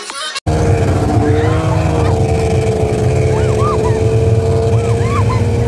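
Snowmobile engine running steadily at speed, holding one droning pitch with a low rumble beneath. Short, high squeals of laughter cut in over it several times.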